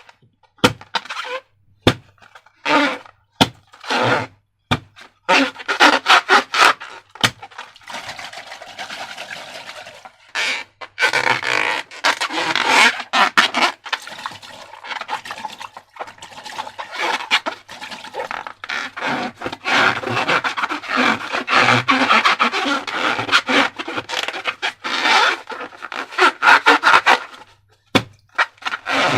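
Close-up handling sounds of balloons and slime materials: a few sharp clicks and taps at first, then long stretches of crackly rustling and rubbing.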